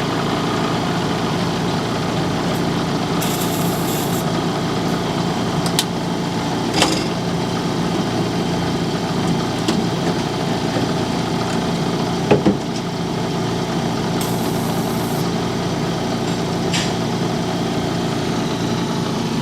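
Radial shockwave therapy device running steadily, its applicator pulsing rapidly against gel-coated skin over its compressor's running. A few sharper clicks sound, the loudest about twelve seconds in.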